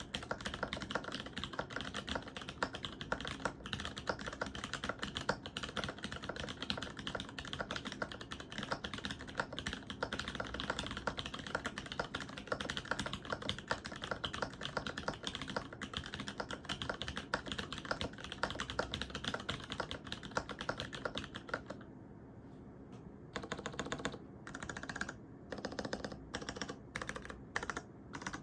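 Typing on a polycarbonate Alice-layout mechanical keyboard with lubed, filmed Cherry MX HG Brown tactile switches on an aluminium plate: a fast, steady run of key clacks. About 22 s in the typing pauses briefly, then goes on in short separate bursts of keystrokes.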